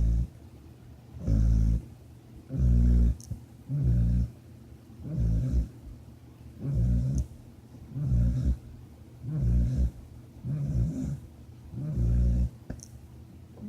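Loud, rhythmic snoring: about ten snores in a row, one every second and a half or so, each a rough low rattle with quieter breathing in between.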